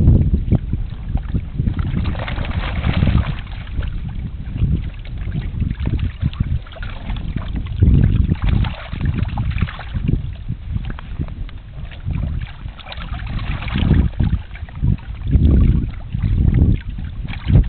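Wind buffeting the microphone, over water splashing and sloshing in the shallows as fish are let out of a keepnet, in patches of louder splashing.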